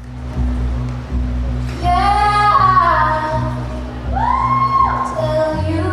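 A 1960s song playing: steady low held chords, with a high singing voice coming in about two seconds in on long held notes.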